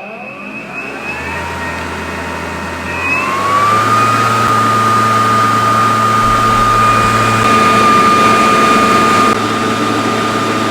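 Ryobi 40-volt battery-powered backpack blower running on turbo boost: its brushless motor and fan spin up with a rising whine, then hold a steady high-pitched whine over rushing air from about four seconds in. It measured roughly 84 decibels and was called not that loud.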